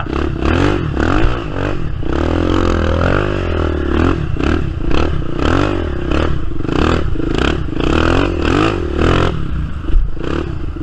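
ATV engine revving up and down over and over as the quad is ridden hard, with knocks and rattles from the machine over rough ground.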